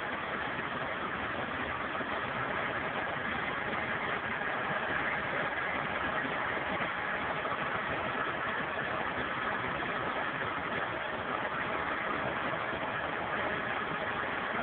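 Truck-mounted boom crane's engine idling steadily.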